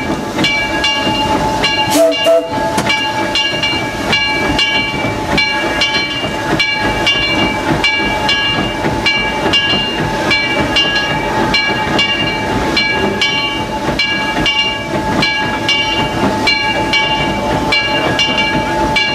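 A 1925 Baldwin 2-4-0 steam locomotive heard from inside its cab, rolling slowly into a station: running noise and steam hiss, with a ringing tone struck again about twice a second. There is one sharp knock about two seconds in.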